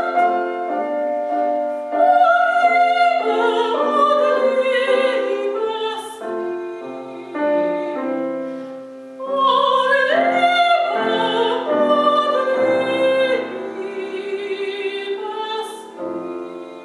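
A classically trained soprano sings held, wavering notes with piano accompaniment, in the style of an art song. The voice drops away near the end, leaving quieter piano.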